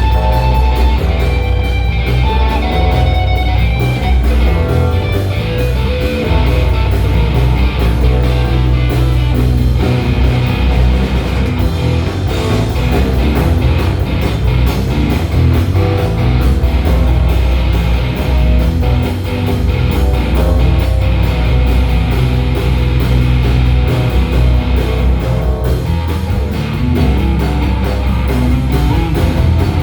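Live band playing an instrumental passage: electric guitar over a heavy bass line, drums and keyboard.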